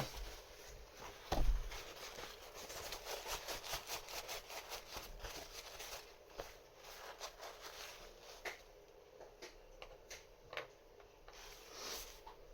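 Paper towel rustling and crinkling as the oily wheels of a combination safe lock are handled and wiped, with a single knock about a second and a half in and light clicks of small lock parts later on.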